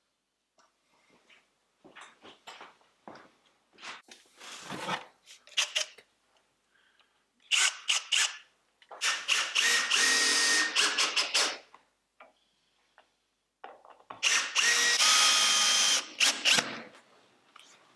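Cordless drill-driver running in two runs of a couple of seconds each with a steady motor whine, driving a screw into a strip of wood. Clicks and rattles of the tool being handled come first.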